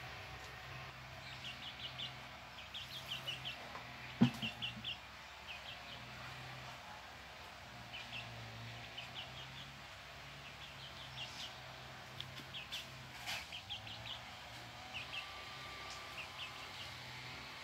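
Birds chirping in quick runs of three or four short high notes, over and over, with a single sharp knock about four seconds in.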